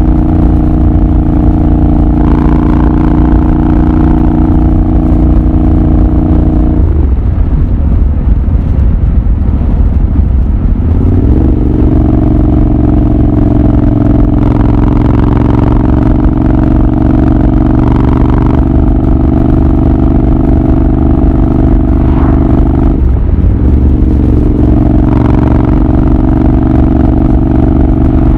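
Royal Enfield Continental GT 650's 648 cc parallel-twin engine and exhaust under way at a steady cruise. About seven seconds in the note falls away for a few seconds as the throttle closes, then climbs back to a steady pull; a brief dip and pick-up comes about two-thirds through.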